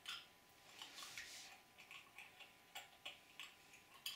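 Faint small irregular clicks, a few a second: a vodka bottle cap being moved around in a mouth and knocking against the teeth.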